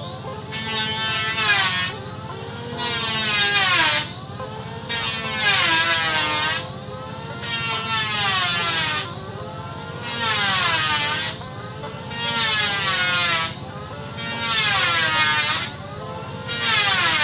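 Loud buzzing call repeated in regular phrases about every two seconds, each phrase just over a second long and dipping then rising in pitch.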